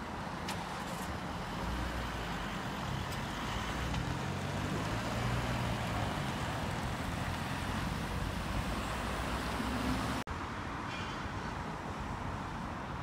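Cars driving across a road level crossing, engines and tyre noise loudest from about two to ten seconds in. About ten seconds in it cuts off suddenly, and a quieter, steady traffic hum follows.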